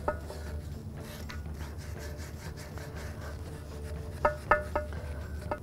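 Small wire brush scrubbing rust out of the bearing bore of a steering knuckle, a steady scratching, with several sharp metallic clinks in the last second and a half.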